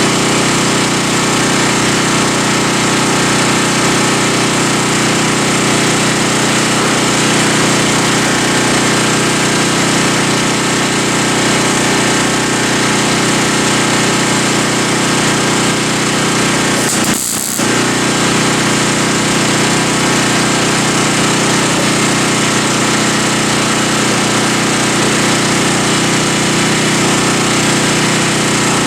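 A power tool running continuously at a steady speed on the hood's sheet metal, with a brief break in its sound about 17 seconds in.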